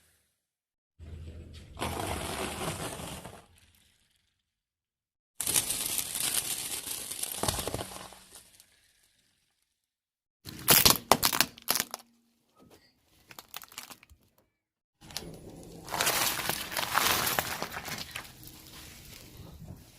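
Objects being crushed under a car's tyres: four separate crushes, each a stretch of crackling and crumpling, with a cluster of sharp cracks about halfway through. Each crush cuts off abruptly.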